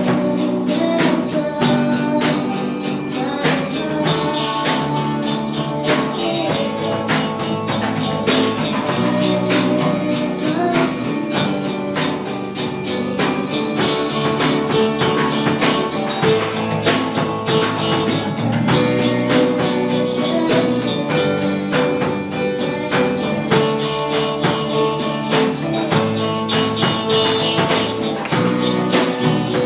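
A small band playing live: electric guitars, bass guitar and drum kit, in a steady full-band groove.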